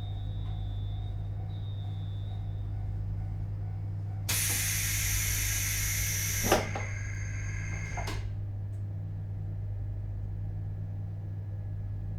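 Interior of a JR Hokkaido 721 series electric train car standing with a steady electrical hum and two short high beeps early on. About four seconds in, a loud blast of compressed-air hiss lasts about two seconds, ends with a sharp thump, and tails off by about eight seconds.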